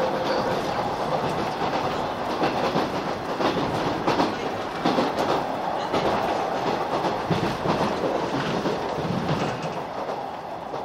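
JR 185-series electric train pulling out and moving away, its wheels clacking over rail joints and points. The sound fades near the end as the train draws off.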